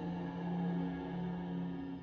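Dark ambient soundtrack music of sustained low notes, a held drone with slow overlapping tones above it.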